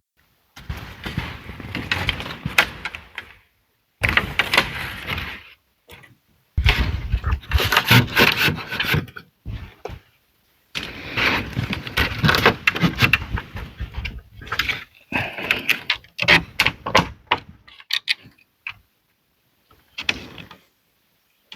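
Wood being worked by hand: scraping, rubbing and knocking with many sharp strokes, in short stretches that cut off abruptly into dead silence.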